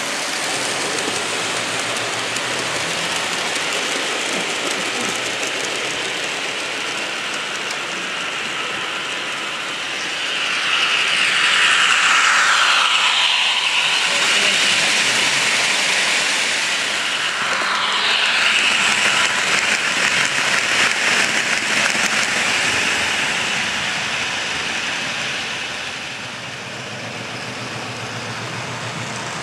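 HO-scale model trains running on the layout's track, a steady rolling and mechanical noise from wheels and motors. It grows louder from about ten seconds in as a long train of covered wagons passes close, with a whine that falls and then rises in pitch, and drops back after about twenty-five seconds.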